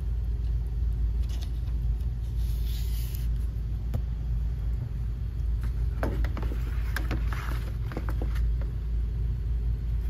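Steady low rumble of running HVAC machinery in the air-handler cabinet, with a few light knocks and scrapes of filters and sheet-metal framing being handled about six to eight seconds in.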